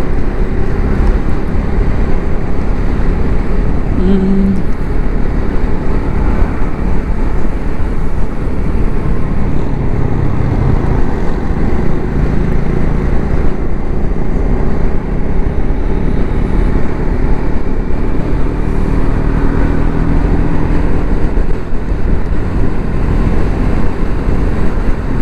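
Triumph Scrambler 400 X's single-cylinder engine running at highway cruising speed, under heavy wind rush over the microphone and tyre noise. A brief steady tone sounds about four seconds in.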